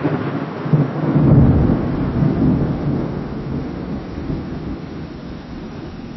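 Distant thunder rumbling: it begins suddenly, swells to its loudest a second or two in, then slowly dies away in a long low rumble.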